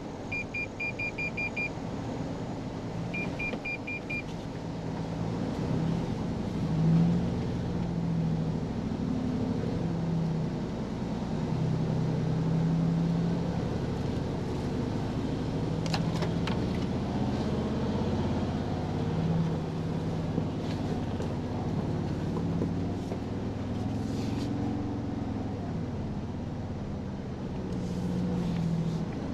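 Inside the cab of a 2023 Toyota Tundra TRD Pro crawling along a dirt trail: the twin-turbo V6 hybrid powertrain runs low, its engine note rising and falling with the throttle over a steady rumble of tyres and suspension. Two short runs of rapid electronic beeps sound in the first few seconds, and a few sharp clicks come later.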